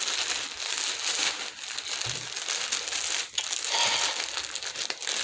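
Packaging crinkling continuously and irregularly as it is handled and opened by hand.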